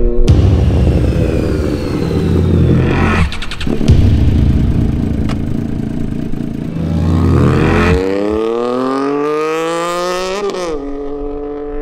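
Triumph 675 three-cylinder motorcycle engine rumbling at low speed, with two brief breaks in the sound. Then it accelerates with a steadily rising engine note for about two and a half seconds before the pitch drops sharply as the bike passes and rides away.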